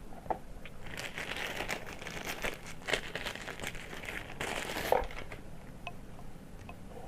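Plastic packaging crinkling as it is handled and unwrapped, with a few sharp clicks; the crinkling stops about five seconds in, leaving a few light ticks.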